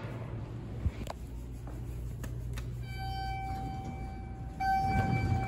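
Elevator buzzer giving a steady, pitched electronic tone for about three seconds, louder in its last second, over a low steady machinery hum; a couple of sharp clicks come about a second in.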